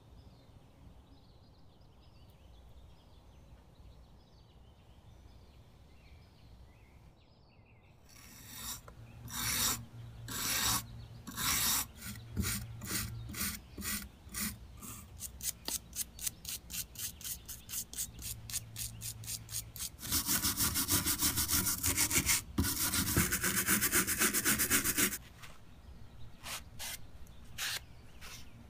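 A stiff-bristled brush scrubs rusty metal hand vise parts coated in rust-removing gel. After a quiet start, separate scraping strokes come at about two a second. Then a few seconds of fast, continuous scrubbing, and a few last strokes near the end.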